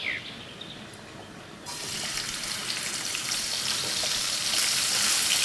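Freshly washed, still-wet dried anchovies hitting hot oil in a frying pan: a sudden sizzle starts about a second and a half in and holds steady, the water on the fish spattering in the oil.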